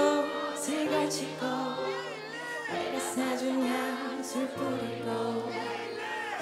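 A female pop singer singing the slow opening verse of a song live into a microphone, over sustained band accompaniment, with a held, wavering note about two seconds in.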